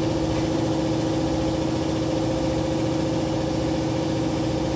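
Air compressor running steadily: a constant motor hum over a fast, even low thumping.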